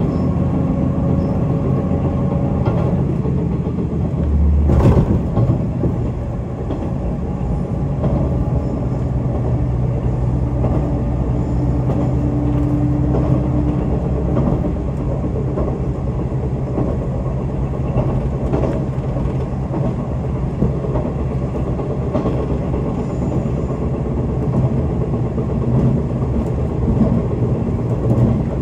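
Onboard running noise of a JNR KiHa 185 series diesel railcar: a steady low engine drone mixed with wheel-on-rail rumble and scattered knocks, with one heavier thump about five seconds in.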